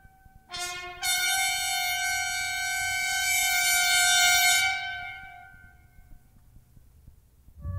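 Orchestral music. A soft held woodwind note gives way about a second in to a loud, bright sustained brass chord, which is held for about four seconds and then dies away. A falling run of notes starts right at the end.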